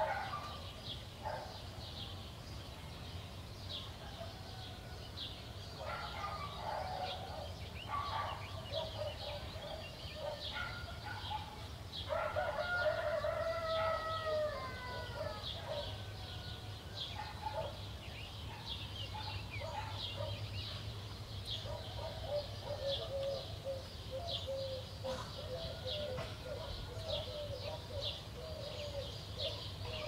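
A rooster crows once about twelve seconds in, one long call that falls in pitch at the end, over continual high chirping of small songbirds in a dawn chorus.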